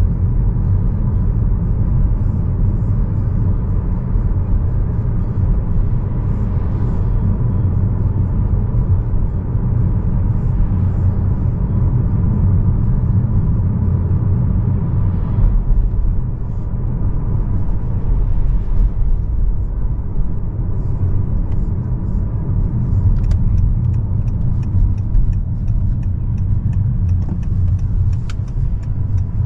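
Steady low road and tyre rumble inside the cabin of a Honda Accord driving along.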